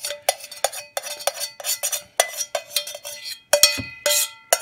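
A utensil clinking and scraping against a metal saucepan in a quick, irregular series of strikes as curry udon is emptied out, the pan ringing after each hit.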